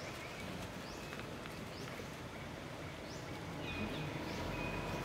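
Outdoor ambience with short, high rising chirps repeating about once a second, over a steady background hiss; a low rumble builds near the end.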